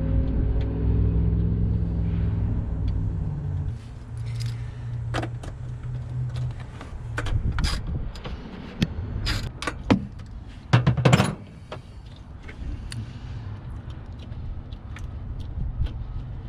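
Metal clicks and clinks of hand tools and a wire terminal as a ring terminal is fitted and fastened onto a stud, the loudest cluster about eleven seconds in. Under them is a low steady rumble that drops in level about four seconds in.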